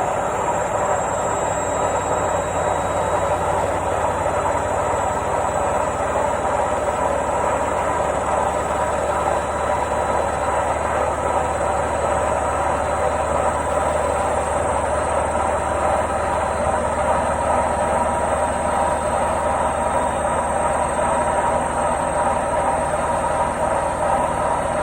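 Washing machine in its spin cycle, running with a steady, unbroken whirring hum, a low drone underneath and a faint high whine above.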